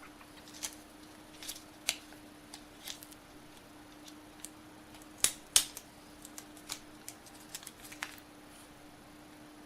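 Box packaging being handled as an accessory is worked free of its compartment: scattered light clicks and taps, with two sharper clicks a little after halfway, over a faint steady hum.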